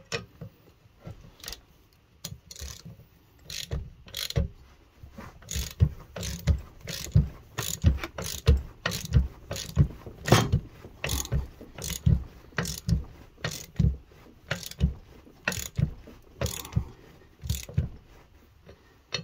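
Hand ratchet clicking steadily, about two clicks a second, as it turns a lug nut on a deep socket to draw a new wheel stud into the axle flange.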